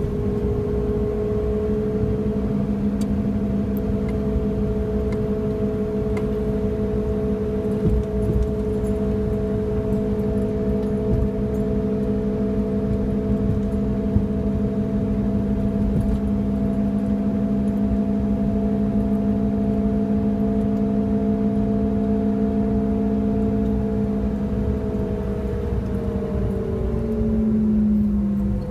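Worn rear wheel hub bearing on a Suzuki Wagon R droning loudly while driving: a steady hum of a few tones over road noise, dipping in pitch near the end.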